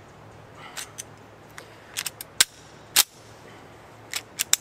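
Remington R51 9mm pistol's slide and action being worked by hand to clear a stoppage: a string of sharp metallic clacks and clicks, the loudest about halfway through and near the end.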